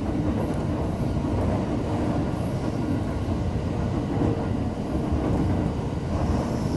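Electric train running at speed, heard from inside the car just behind the driver's cab: a steady low rumble of wheels on the rails.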